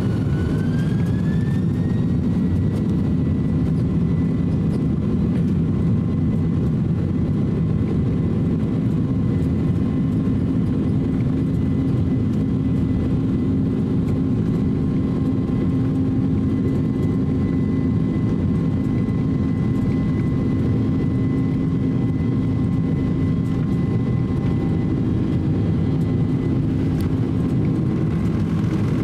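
Jet engines of a Boeing 767-300 heard from inside the cabin. Over the first two seconds a whine rises in pitch, then holds steady over a continuous rumble.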